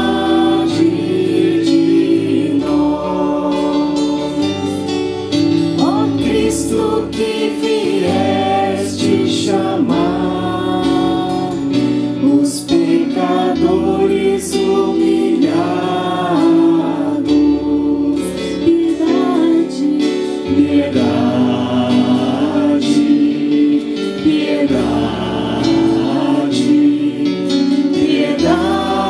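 A church choir singing a hymn, with instrumental accompaniment holding long bass notes that change every second or two.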